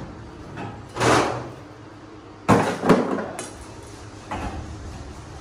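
Sheets of mesh being handled: a brief swish about a second in, then a loud clattering knock followed by a second knock and a click, and a smaller knock a little later.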